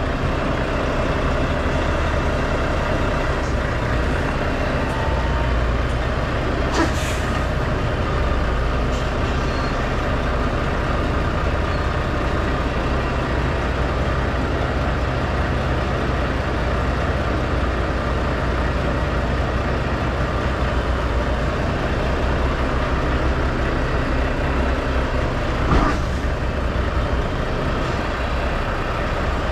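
Semi truck's diesel engine running steadily at low speed as the rig creeps through a trailer yard. A brief sharp sound comes about seven seconds in and a short knock near the end.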